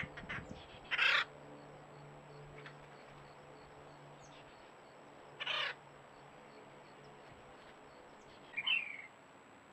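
Birds calling: two single harsh, noisy calls, about a second in and again about five and a half seconds in, and a short, higher wavering call near the end.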